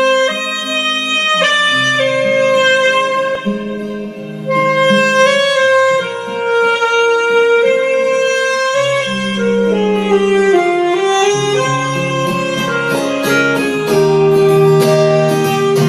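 Miked saxophone playing a slow melody of held notes, amplified through a Bose L1 tower PA speaker, with acoustic guitar strumming that comes through more clearly in the second half.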